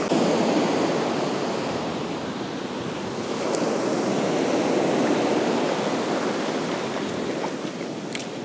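Ocean surf breaking and washing up the beach, with wind on the microphone; the wash swells about three and a half seconds in and eases toward the end. A couple of faint clicks come through.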